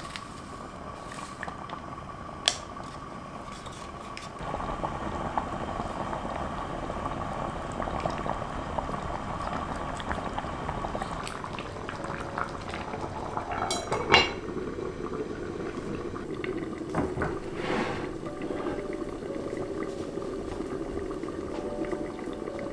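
Tomato beef stew bubbling at a low simmer in an enamelled cast-iron pot, a steady bubbling that grows louder about four seconds in. One sharp clink rings out about fourteen seconds in.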